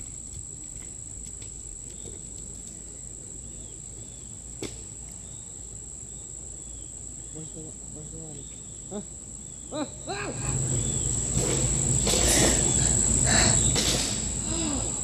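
Steady, high-pitched insect chorus droning on one thin tone. From about ten seconds in it is joined by louder rustling noise and a voice.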